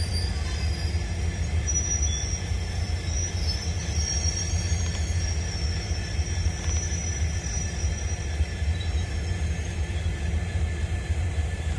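Indian Railways passenger coaches rolling slowly past on the rails: a steady low rumble of wheels on track, with a faint high wheel squeal for a few seconds in the middle.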